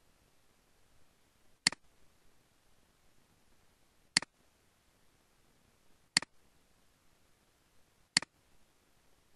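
Computer mouse button clicking, four sharp single clicks about two seconds apart, each with a softer tick right after as the button is released.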